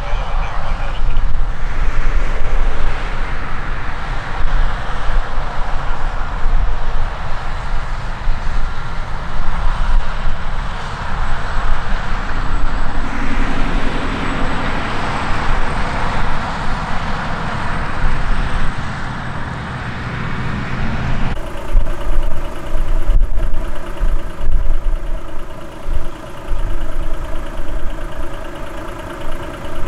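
Motor vehicle running: a loud, even rushing noise that changes abruptly about two-thirds of the way through to a steady engine hum.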